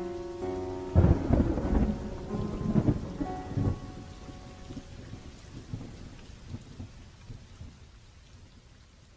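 A rumble of thunder breaks in about a second in, loud and deep, and rolls on while slowly fading, over steady rain. Soft plucked music notes die away under it.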